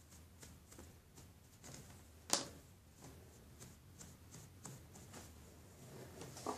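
Faint, repeated soft strokes of a brush dusting baby powder onto a small squishy silicone toy, with one sharp click a little over two seconds in.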